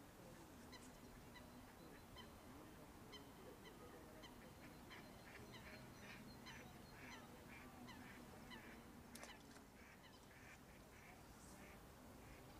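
Faint run of short, rapid animal calls, about three a second, starting a few seconds in and lasting until near the end, over a low steady hum.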